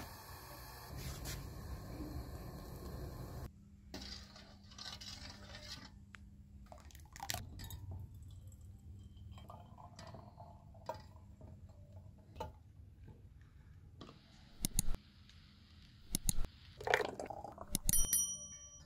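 Kitchen handling sounds: scattered clicks and a few sharp knocks, then a clink that rings on briefly near the end.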